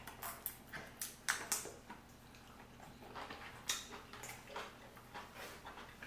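Close-miked eating sounds: instant ramen noodles slurped and chewed, a string of short, wet mouth noises at uneven intervals.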